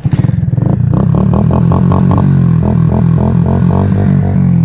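70cc single-cylinder motorcycle with an aftermarket exhaust, running loud under throttle as it pulls away, its exhaust note coming in suddenly right at the start and holding steady with slight rises and falls in pitch.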